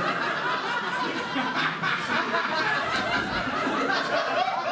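Live audience laughing and chuckling, many voices overlapping.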